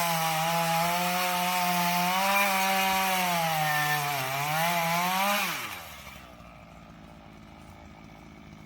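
Chainsaw running at full throttle, cutting into a tree; the engine pitch sags briefly about four seconds in, then winds down about five and a half seconds in.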